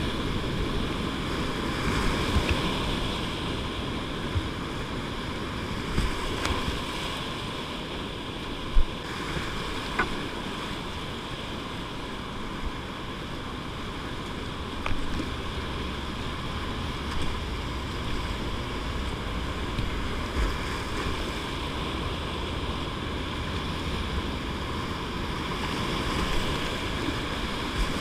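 Whitewater rapids rushing steadily around a kayak, heard from the boat. A handful of short sharp splashes from paddle strokes and waves slapping the hull stand out, the loudest about nine seconds in.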